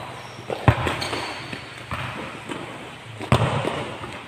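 A futsal ball kicked on a hard court: two sharp thuds about two and a half seconds apart that echo in the hall, with lighter knocks of feet and ball between them.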